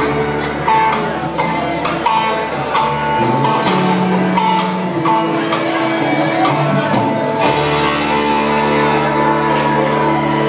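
Live country band playing an instrumental passage with electric guitars, fiddle, bass and drums, drum hits marking the beat. About three-quarters of the way through it settles into a long held chord.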